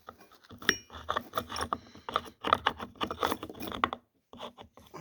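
Metal clicks, clinks and rattles of a chainsaw's bar, chain and side cover being handled as the cover is fitted back onto the saw, with a brief metallic ring about two-thirds of a second in.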